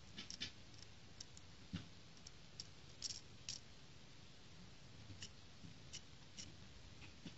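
Faint, scattered light clicks and taps of a small plastic Sluban brick-built toy motorcycle being handled and turned over in the fingers, irregularly spaced, a little stronger around two to three and a half seconds in.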